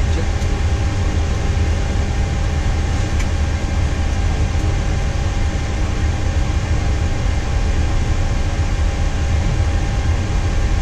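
Steady low rumble and hum inside a Boeing 737-800 cockpit while engine number two is being started.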